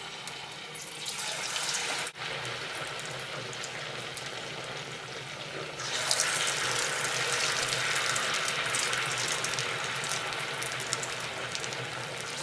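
Batter-coated samosa pinwheels sizzling as they deep-fry in moderately hot oil in a wok-style pan. The sizzle grows louder and busier about six seconds in, as more pieces are dropped into the oil.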